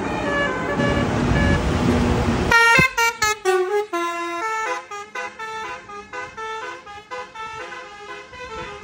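Tour bus engine and road noise, then about two and a half seconds in a sudden change to a multi-note 'basuri' musical air horn (telolet horn) playing a quick tune of stepped notes, which continues as a repeating melodic pattern.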